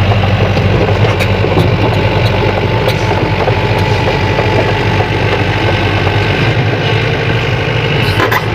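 Sany excavator's diesel engine running steadily at a low, even pitch, with a few faint metallic clinks, the clearest near the end.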